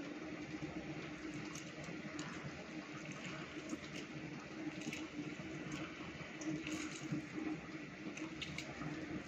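Faint steady hiss with a low hum and a few light ticks.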